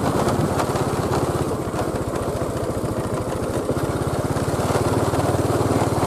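A small engine running steadily, with rapid, even firing pulses.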